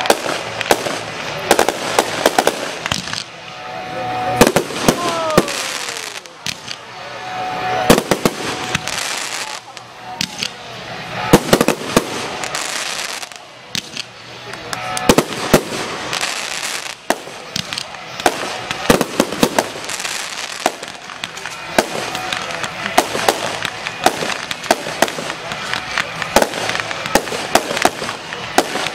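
Fireworks display: repeated sharp bangs of bursting shells and stretches of dense crackling, with a whistle falling in pitch about five seconds in.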